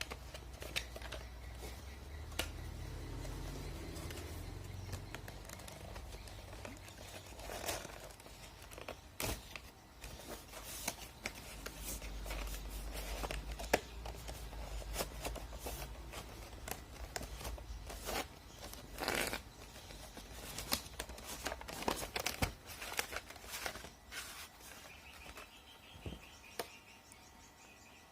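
Swiftlets giving rapid, irregular clicks and short chirps, over a low rumble that comes and goes.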